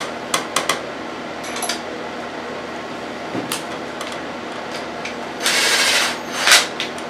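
Socket ratchet running down the camshaft housing bolts on a GM 2.4 Quad 4 cylinder head: scattered light metal clicks, then a short rasp of ratcheting about five and a half seconds in and a sharper clack just after.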